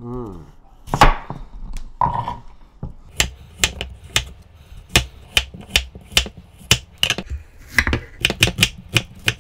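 Large kitchen knife cutting potatoes and then an onion on a wooden cutting board: a run of sharp knocks of the blade on the board, about two or three a second, coming faster near the end.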